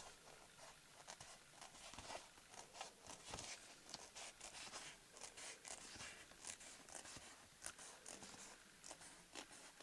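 Scissors snipping through a sheet of foamiran (thin craft foam): a faint, irregular run of short cutting clicks, a few a second.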